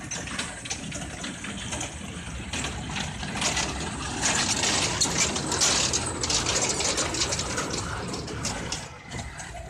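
Small amusement-park kiddie train running on its track: a steady low motor hum with rattling and clicking from the cars, louder between about three and eight seconds in.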